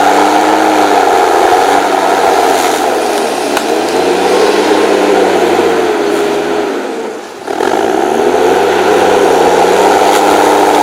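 6.7-litre diesel engine of an HSM 904 S forestry machine running under changing load, its pitch rising and falling. The sound fades briefly about seven seconds in, then comes back suddenly.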